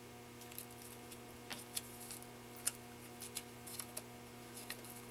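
Thin printed foundation paper being torn and peeled off sewn fabric half-square triangles by hand: light, irregular crinkles and snaps, over a faint steady hum.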